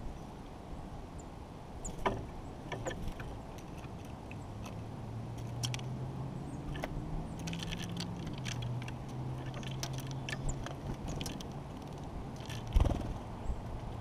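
White-breasted nuthatch at a log-trough seed feeder: quick, scattered taps and clicks of its bill and feet on the seed and wood close to the camera, with a loud knock about 13 s in. Under it, the low drone of a distant engine comes in about a third of the way through and rises and falls in pitch once.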